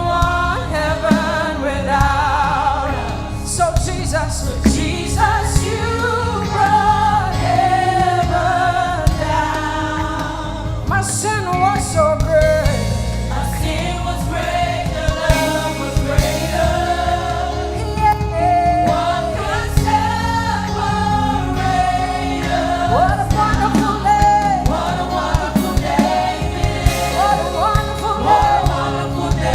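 Live gospel-style worship song: voices singing a melody, with choir-like backing vocals, over a band with steady bass and drums.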